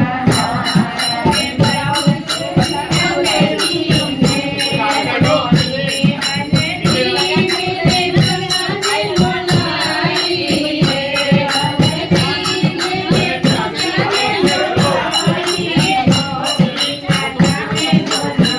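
Kumaoni folk song: singing over a steady, regular beat of drum and jingling or rattling percussion.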